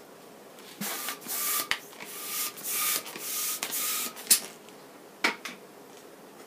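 Hand balloon pump inflating a long latex modelling balloon: several quick pump strokes, each a short hiss of air with a slight whistle, over about three seconds. Then a sharp click, the loudest sound, followed by a fainter one about a second later.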